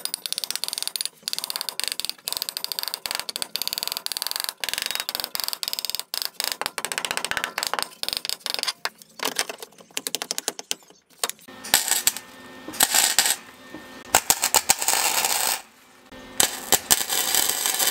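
Rapid metallic tapping and clinking as the steel shifter box is worked down into the floor-pan opening. From about twelve seconds in, flux-core arc welding crackles in short bursts with one longer run, as the box is welded to the car's floor pan.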